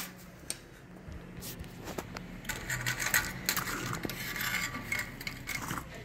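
Handling noise from a removed washing-machine spin motor: light metallic clinks, scrapes and rubbing as it is moved about on a tile floor, with scattered short clicks.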